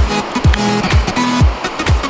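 Background electronic music with a deep, booming kick drum beating about twice a second under sustained synth tones.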